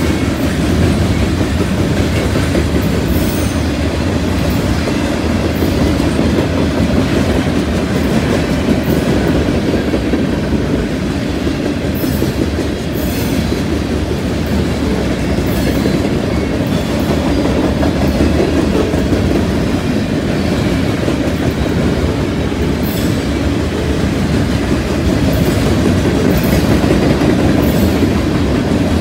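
A long freight train's cars rolling steadily past at close range: a continuous low rumble of steel wheels on rail, with the clickety-clack of wheels crossing rail joints and switch points.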